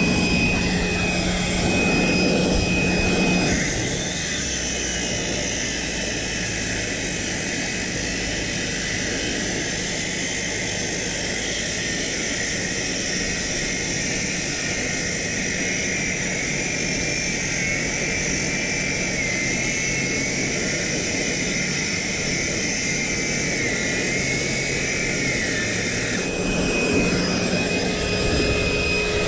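Circular saw cutting concrete, running steadily under load with a whine whose pitch wavers slightly as the cut goes. The sound changes abruptly a few seconds in and again near the end.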